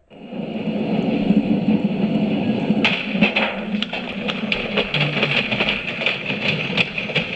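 1995 washing machine running, with a steady low hum. From about three seconds in, a fast rattling and knocking joins it, the machine shaking hard enough to move across the floor.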